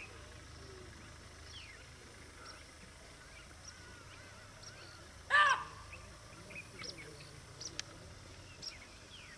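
Birds chirping and twittering in scattered short calls, with one loud, short pitched call about five seconds in.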